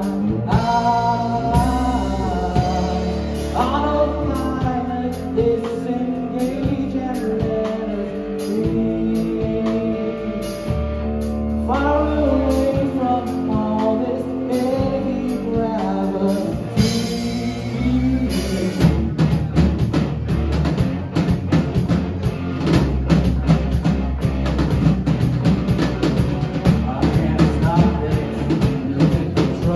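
Live rock trio of drum kit, bass and electric guitar playing, with sung vocals over held chords and low bass notes. About eighteen seconds in, the drums switch to dense, fast hits.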